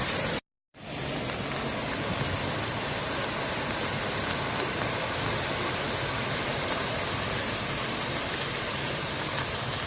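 Steady hiss of heavy rain falling onto floodwater, broken by a brief dropout to silence about half a second in.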